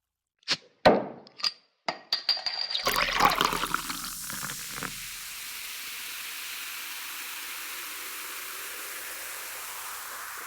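A few sharp clicks and a short high beep, then a crackling rush of liquid that settles into a steady pouring hiss: a bottle-opening and pouring sound effect.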